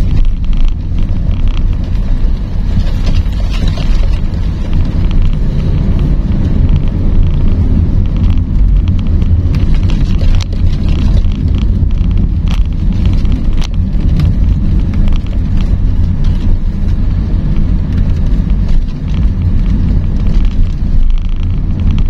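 A sedan driving on a rough dirt road, heard inside the cabin: a steady low rumble of tyres and engine, with a few short knocks and rattles from bumps near the middle.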